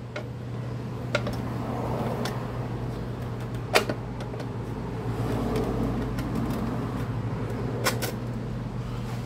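Scattered sharp clicks and knocks as a Tecumseh recoil starter housing is set onto the mower engine and shifted into place, the loudest nearly four seconds in, over a steady low hum.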